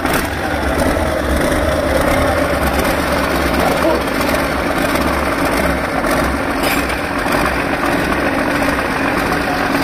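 Freshly rebuilt Doosan excavator turbo diesel engine running steadily at idle, just after starting up.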